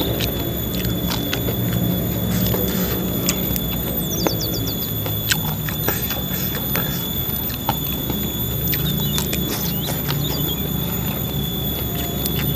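Close-miked chewing and wet mouth sounds of a man eating, with many small sharp clicks and crunches scattered through, while he tears raw young leaves for lalapan. Thin steady high-pitched tones run underneath.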